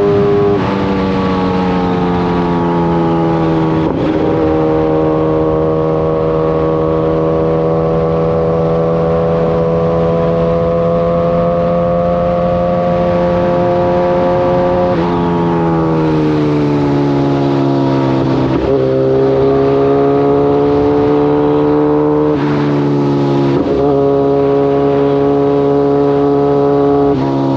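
Kawasaki ZX-14's inline-four engine running under way at a steady note, its pitch falling several times: soon after the start, over a few seconds past the middle, and again near the end.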